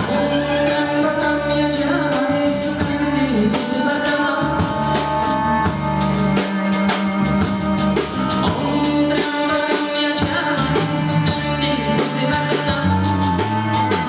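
A song played on drums and other instruments, with a singing voice over it.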